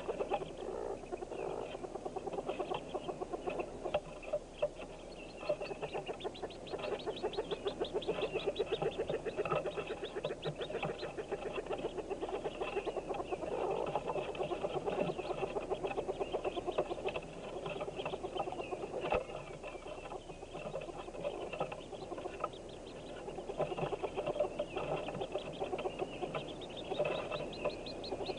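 Hooded merganser ducklings calling inside the nest box: a dense, near-continuous stream of rapid peeps and clucks from many chicks at once, easing off briefly a few times.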